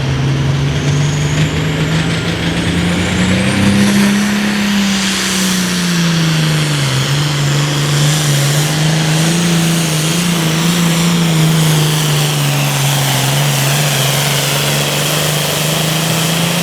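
A Super Farm class pulling tractor's turbocharged diesel engine running at full throttle under heavy load while pulling the weight-transfer sled. The engine note climbs about three to four seconds in, sags a little, then holds steady, with a high whistle rising over the first few seconds.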